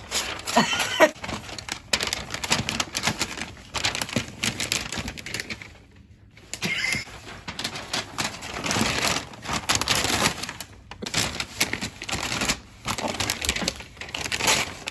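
Adhesive tape being pulled off a roll and wound around a wrapped package: fast crackling rips in irregular bursts, with short lulls about six and eleven seconds in.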